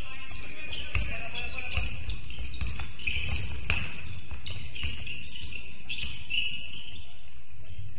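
Basketball game on an indoor court: the ball bouncing and sneakers squeaking on the floor, with voices in the background.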